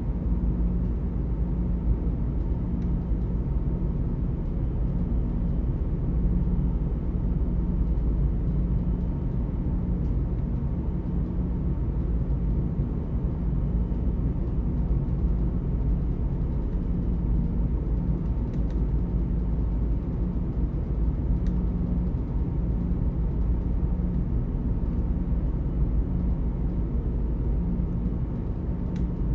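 Steady low rumble and hum of the ferry Blue Dolphin's engines and hull vibration, heard inside a passenger cabin.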